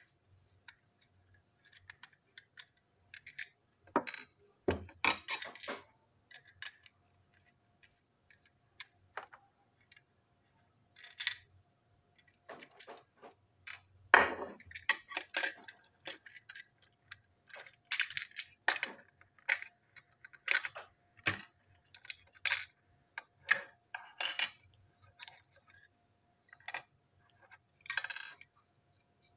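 Small screws and plastic toy-train parts clicking and clattering against a tabletop as a toy engine is taken apart by hand, in irregular light taps with the loudest clatter about halfway through.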